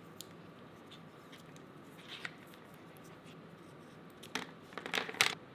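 Electrical insulation tape being worked off the roll to wrap exposed cable ends: a few short rasping strips close together about four to five seconds in, with faint handling ticks before them.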